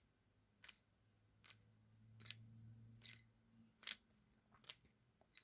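Faint clicks of a 3x3 Rubik's cube's layers being turned by hand, about one click every second.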